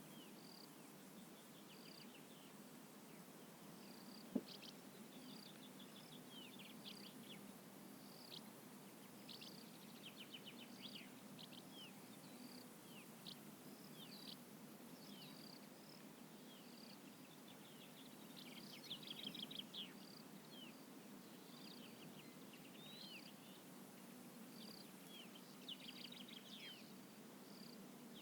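Quiet outdoor evening ambience in a vineyard: birds chirping and giving short trills throughout, with repeated short high chirps, over a faint low hum. A single sharp click about four seconds in.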